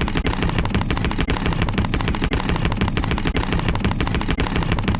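Small engine running at a rapid, even putter of many knocks a second.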